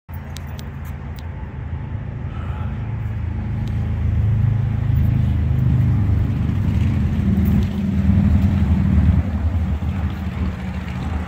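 Wind buffeting the phone's microphone: a loud, rough low rumble that swells stronger in the middle and eases near the end.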